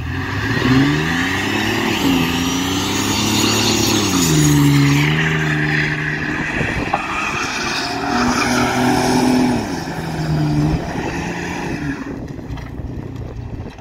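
2003 GMC Sonoma pickup doing donuts: the engine revs up and down in repeated surges while the rear tires spin and squeal on the asphalt. The revving and squeal ease off after about twelve seconds.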